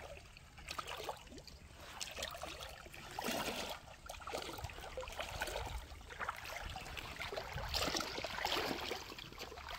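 Rubber boots wading through shallow seawater, with an uneven run of splashes and swishes as each foot pushes through the water.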